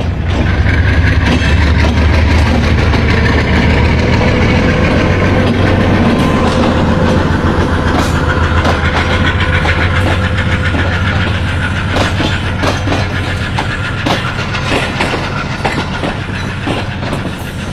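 Passenger train pulling out: the diesel locomotive's engine drones low and loud as it passes at first, then the coaches roll by with their wheels clacking over the rail joints.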